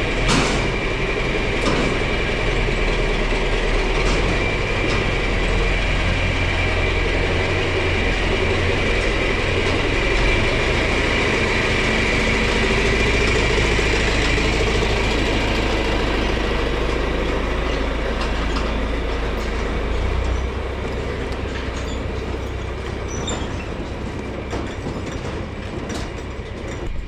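Tractor engine running steadily while towing the combine's grain-head cart, with a constant mechanical drone that eases off about twenty seconds in.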